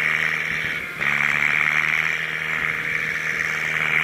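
Farm machinery engines running steadily in a muddy rice field, with a strong, steady high-pitched hiss over the engine hum; the sound dips briefly and shifts about a second in.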